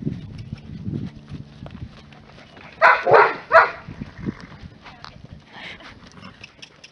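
A dog barks three times in quick succession, about three seconds in.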